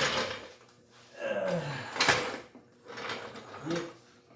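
A floor jack being worked into place under a sagging car body section to hold it up: a sharp metallic knock about two seconds in, among faint handling clunks. A loud steady noise cuts off just after the start.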